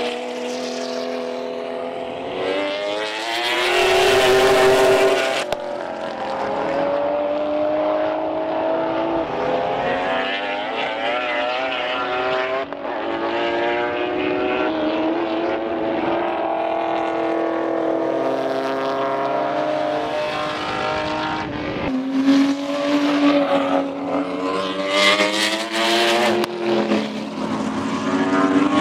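Sports sedan race car engines at full racing speed, the pitch climbing under acceleration and dropping repeatedly through gear changes. The sound changes abruptly twice, about a third of the way in and near the end.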